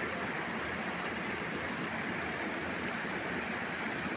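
Steady outdoor hiss, with a faint high chirp repeating about one and a half times a second.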